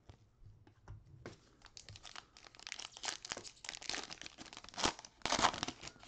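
Foil wrapper of a Panini Prizm trading-card pack being torn open and crinkled by gloved hands: a dense run of crackles starting about a second in, loudest near the end.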